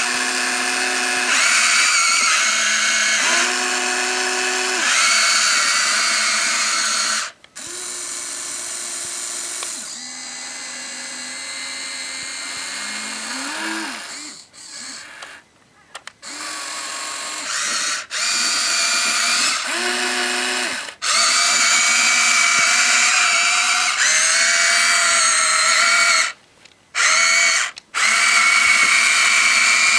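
Huina 1593 RC excavator's small electric motors and gearboxes whining, the pitch changing as its functions start and stop. There are three short pauses where it goes nearly quiet.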